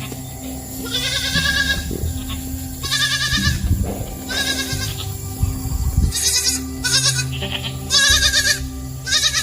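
Goat bleating over and over, about seven high, quavering bleats in a row, each under a second long.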